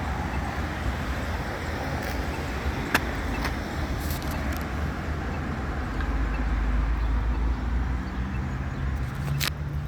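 Road traffic passing through a busy intersection: a steady rumble of cars that swells about six seconds in, with a low engine hum near the end and a few short clicks.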